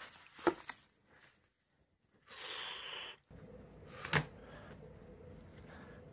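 Packaging being handled, with a tap and a crinkle, then a brief hiss. A sharp click follows as the CD case is set on the desk, over a faint steady hum.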